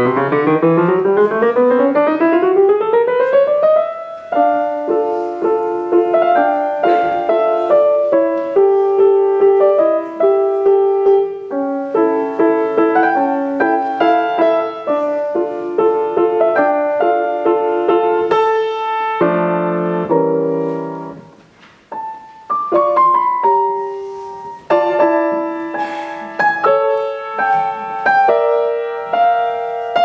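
Solo grand piano playing a classical fantasia: a fast rising run over the first few seconds, then chords and melodic lines, with a brief quiet pause about two-thirds of the way through before the playing resumes.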